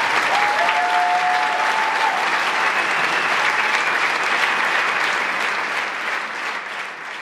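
Theatre audience applauding, a dense clatter of many hands. About half a second in a high held note, such as a whistle, rises over it for about a second and a half. The applause fades out near the end.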